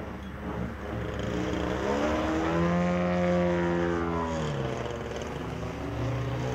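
A 47% scale DR-109 model plane's ZDZ-210 twin-cylinder two-stroke petrol engine and 34x14 propeller running in flight. The engine note climbs over about a second and a half, holds for about two seconds, then drops back.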